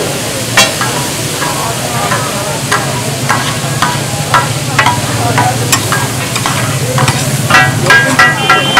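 Chicken pieces sizzling in oil on a large metal tawa, with a metal spatula scraping and tapping the griddle. The taps come faster near the end and ring.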